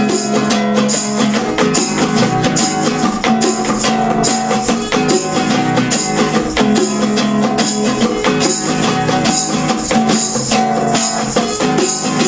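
Instrumental break of a reggae song: strummed acoustic guitar over a steady beat with bongo and hand percussion, no singing.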